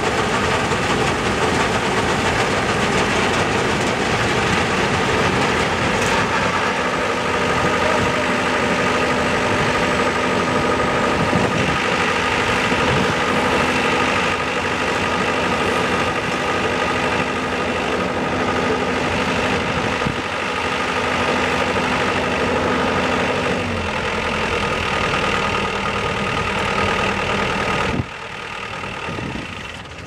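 SINA NBS-2D rice combine harvester running steadily, its engine and grain-unloading spout working as threshed paddy pours into sacks. Its low hum drops slightly in pitch about three-quarters of the way through, and near the end the machine noise falls off sharply.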